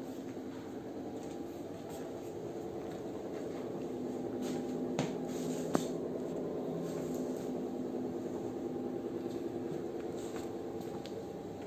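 Steady machine hum of several low tones, with two sharp clicks about five and six seconds in.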